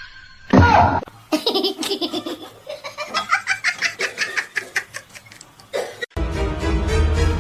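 Laughter in a long run of quick, repeated bursts, after a sharp loud outburst about half a second in; music cuts in near the end.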